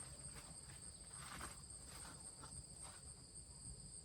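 Steady high-pitched insect trill, typical of crickets, with soft intermittent rustling of leaves and footsteps as someone moves through the gourd vines.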